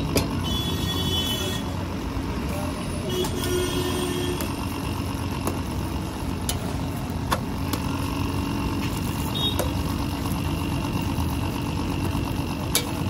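A few sharp clicks of a metal spatula against a hot iron tawa as parathas are turned, over a steady low background rumble.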